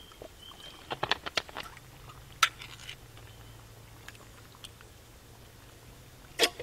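Cooking containers and utensils handled and set down on a wooden camp table. There is a quick run of clicks and knocks about a second in, a single sharp click a moment later, and another loud click near the end, over a faint steady low hum.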